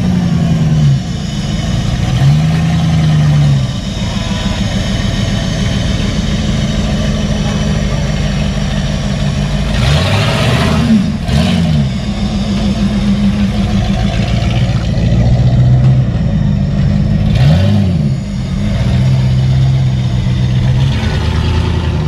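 Off-road 4WD truck's engine running under load and being revved up and down several times, each rev rising and falling in pitch.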